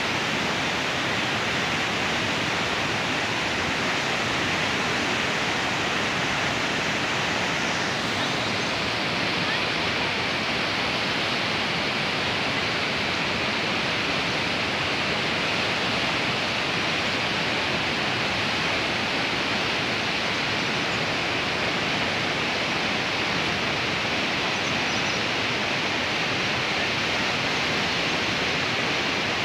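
Fast mountain river rushing over boulders in white water: a steady, unbroken rush of water.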